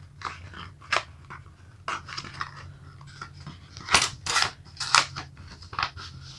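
Paper sample card being handled and opened: a string of crisp, uneven paper crinkles and snaps, the loudest cluster a little past the middle.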